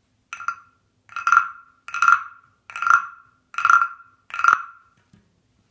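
Carved frog guiro (croaking frog) rasped with its stick along the ridged back six times, each stroke a short croak about every 0.8 seconds. The first stroke is softer.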